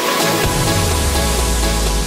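Electronic background music; a deep bass note comes in about half a second in and holds.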